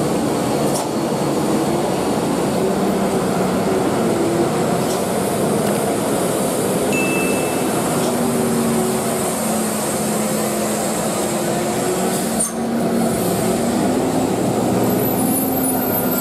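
Heavy diesel trucks passing at low speed, a steady engine drone with a low hum, broken by a brief dip about twelve and a half seconds in.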